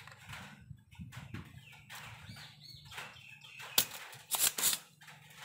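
Spring-loaded desoldering pump working on a TV circuit board: a sharp click about four seconds in, then a quick cluster of short noisy snaps as the pump is fired and reset.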